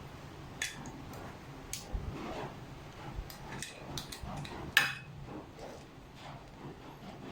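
Small metal clicks and clinks of tools and bike parts being handled while a stem and handlebar are fitted and the clamp bolts tightened, with one sharper clink a bit under five seconds in.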